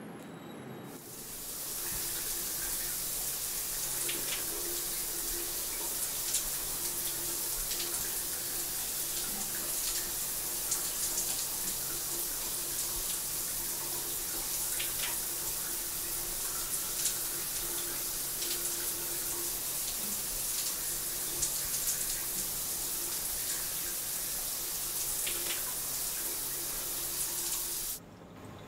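Shower spray running steadily, an even hiss of falling water with small splashes through it. It builds up over the first couple of seconds and cuts off suddenly near the end.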